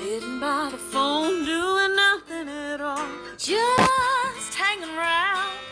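A Nokia 3120 classic ringtone playing: a song with a woman singing a melody with wavering held notes over guitar.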